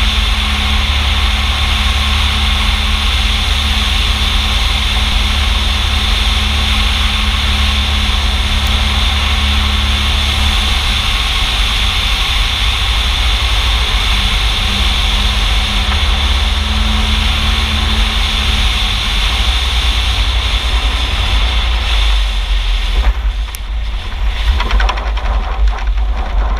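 Cessna Skywagon's flat-six engine and propeller running steadily on the landing approach, with heavy wind rush over the outside camera. Near the end the drone eases and turns rough and uneven as the plane rolls out on the grass strip.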